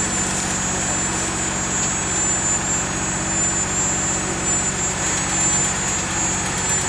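Small tractor's engine running steadily, an even low hum, with a steady thin high whine above it.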